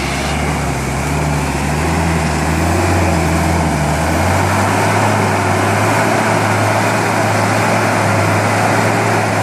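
Off-road 4x4's engine running steadily under a loud noisy wash, its note shifting about four seconds in.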